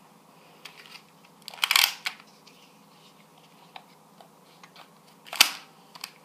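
Plastic clicks and rattles of a Nerf Sharpfire blaster being handled and fitted together into its rifle form, with a short scraping rustle about one and a half seconds in and one sharp click about five seconds in.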